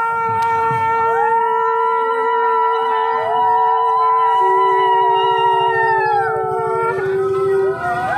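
Several conch shells blown at once in long held notes that overlap. A lower note joins about halfway through, and some notes bend up in pitch as they start and fall away as they end.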